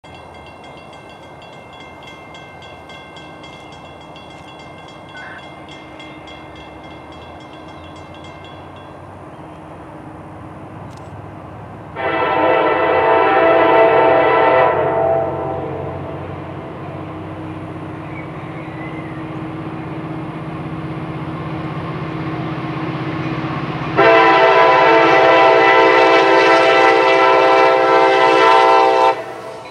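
Approaching CSX diesel locomotive sounding its horn: a long blast about twelve seconds in and a second, longer blast about twenty-four seconds in. Under and between the blasts the locomotive's low engine rumble slowly grows louder.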